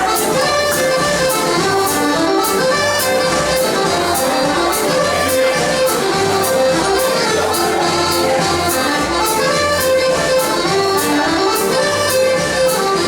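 Scottish country dance band music led by accordion, with a steady drum beat.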